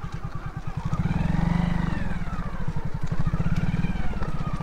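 Hero Splendor motorcycle's single-cylinder engine running as the bike rides slowly, its steady exhaust beat picking up and easing off twice.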